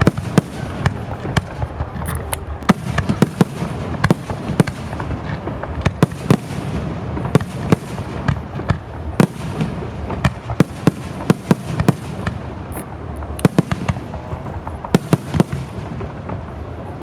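Aerial fireworks display: many sharp bangs of bursting shells, a few per second at uneven spacing, over a steady noisy background.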